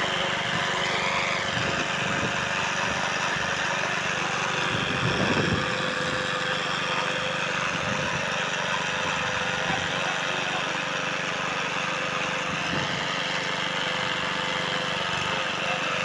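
An engine running steadily, with a brief louder sound about five seconds in.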